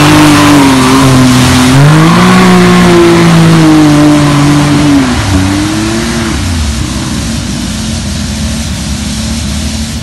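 Can-Am Maverick X3 side-by-side's turbocharged three-cylinder engine revving hard as it drives through deep mud and water. The revs climb again about two seconds in and drop off about five seconds in, then the engine grows fainter as the machine pulls away.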